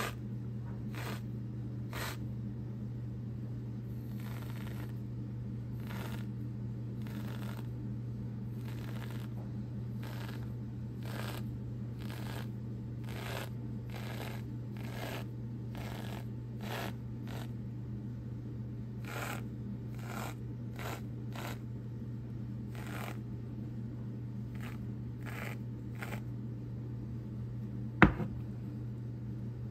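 Aerosol can of whipped cream (Reddi-wip) spraying in many short hissing spurts, one rosette at a time, over a steady low hum. A single sharp knock near the end is the loudest sound.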